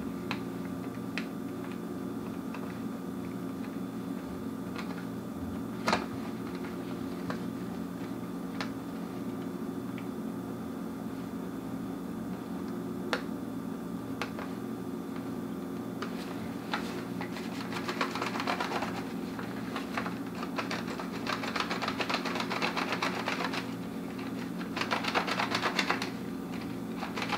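A film developing reel clicking as 120 roll film is wound onto it by hand inside a changing bag: scattered single clicks at first, then rapid runs of clicking through the second half. A steady low hum runs underneath.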